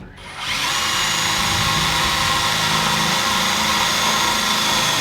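Electric power cutting tool spinning up about half a second in, then running steadily with a high whine as it works at a screw that it won't cut through.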